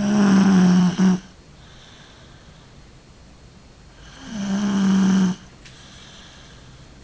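A person snoring: two loud snores about four seconds apart, each lasting over a second at a steady low pitch.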